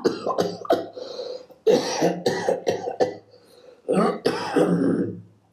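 Recorded human coughs played back: a run of coughs in three close groups, a few single coughs near the start, then two longer fits.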